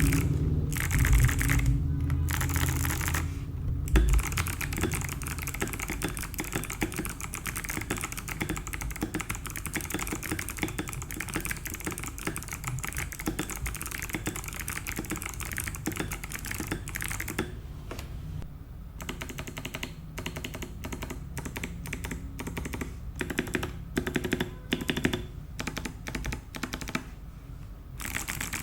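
Rapid typing on a Keydous NJ81 mechanical keyboard fitted with Kailh Box White clicky switches. The keys are on a steel plate first, then pause briefly just before the switch to a brass plate about 19 seconds in.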